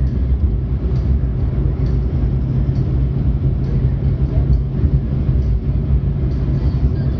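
Steady engine and road rumble heard from inside a moving car's cabin.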